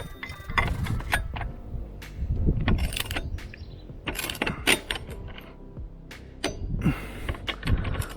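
Wrench, socket and metal parts of a scooter's variator clinking, knocking and scraping as the variator is locked and its nut turned, in irregular strokes with no engine running.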